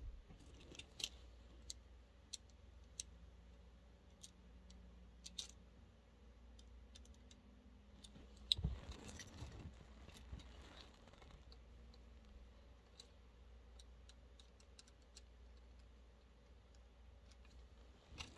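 Faint, scattered clicks and light taps of a hand tool and small screws on a plastic toy as it is being taken apart, with one louder knock about halfway through.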